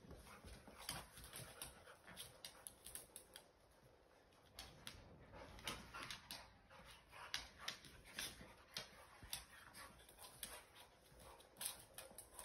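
A puppy and an older dog play-wrestling: faint scuffling with many irregular clicks of claws on a hardwood floor.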